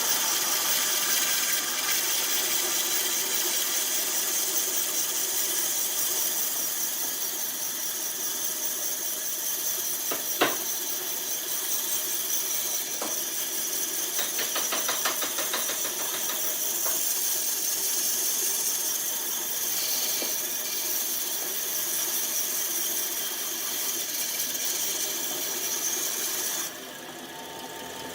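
An electric woodworking power tool running steadily, a high whine over a dense motor hum, then shutting off a little before the end. A single sharp knock about ten seconds in.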